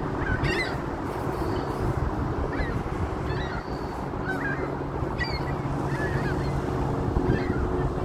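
Gulls calling: short, sharp cries from several birds, roughly one a second, over a steady low rumble.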